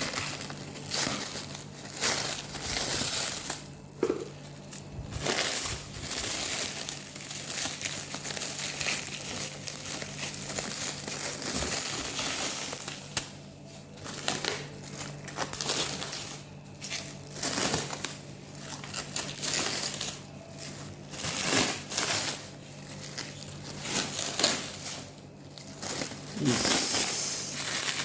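Packaging material crinkling and rustling in irregular bursts as it is unwrapped and handled.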